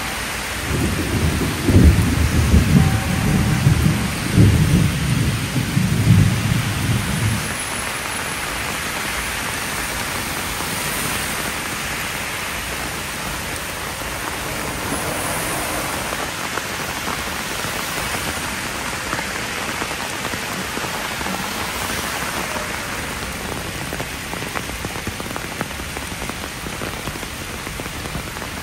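Heavy rain pouring down steadily, with a long low rumble of thunder from about a second in until about seven seconds in.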